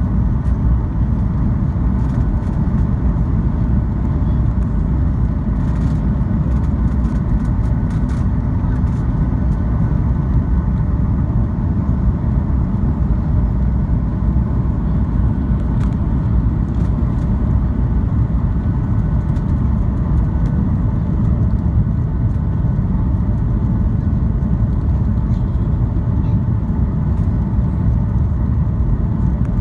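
Steady cabin noise of a Boeing 737 in flight on descent: a constant low rush of engines and airflow with faint steady tones above it, and a few faint clicks.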